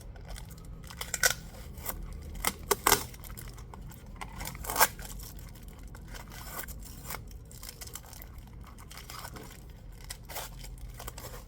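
Photocards and their packaging being handled: rustling with scattered sharp clicks and snaps, louder in the first five seconds and quieter after.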